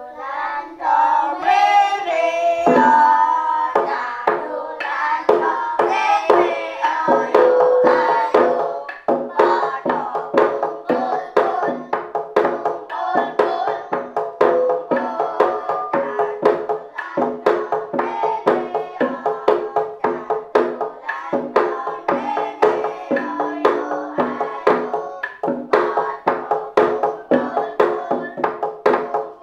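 Gejog lesung: wooden pestles knocking on a wooden rice-pounding trough in a fast, steady interlocking rhythm. Voices sing over it, strongest in the first eight or nine seconds.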